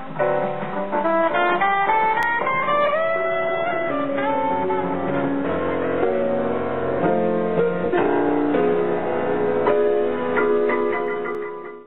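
Instrumental jazz on piano and alto saxophone: a rising run of notes about one to three seconds in, then held chords, with the music dying away at the very end.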